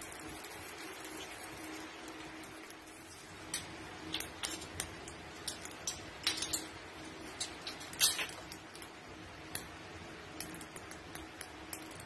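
Scattered light clicks and ticks from the cooking pot over a steady hum, the loudest about eight seconds in.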